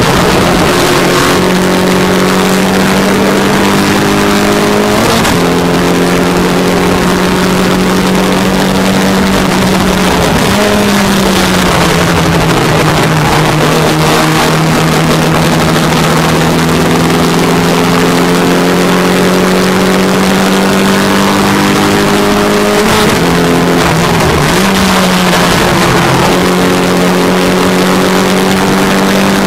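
MGA race car's four-cylinder engine running hard at high revs, heard from the open cockpit over steady wind noise. The pitch drops and climbs again with gear changes about five seconds in and again near the end, with a short easing of the revs around ten seconds in.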